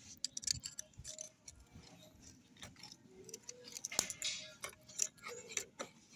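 Irregular light metallic clicks and clinks of hand tools and parts being handled, with a few louder ticks about four seconds in and near the end.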